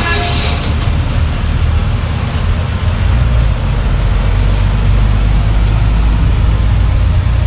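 Motor vehicle running on the road: a steady, loud low rumble of engine and road noise.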